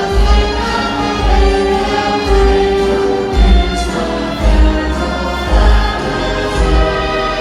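Choir singing with musical accompaniment over a steady low beat, about one beat a second.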